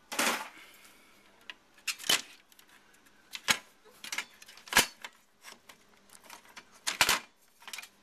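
Sharp knocks and clatter of computer parts being handled while an Apple IIc is taken apart, about six separate hits a second or more apart.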